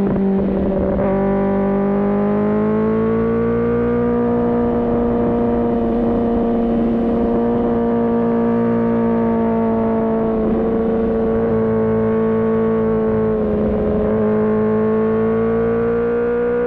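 Kawasaki ZX-10R inline-four engine running at high revs under way, its pitch holding fairly steady with brief dips about a second in, around the middle and a couple of seconds before the end, then rising slightly.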